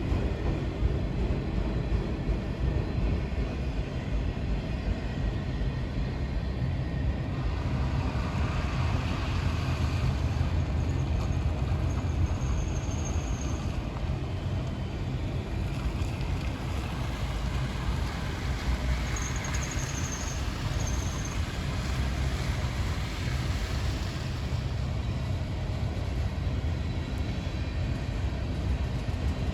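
A train rolling by with a steady low rumble. Two faint, brief high-pitched tones come through, about twelve seconds in and again about twenty seconds in.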